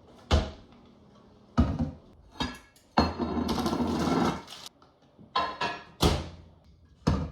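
A series of loud bangs at irregular intervals, about seven in all, some ringing on after the hit. About three seconds in, one bang runs into a longer clattering stretch that lasts over a second.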